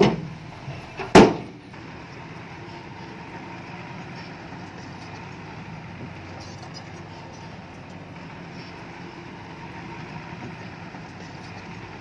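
Heavy earthmoving machinery's diesel engine running steadily, after two loud knocks about a second apart at the start.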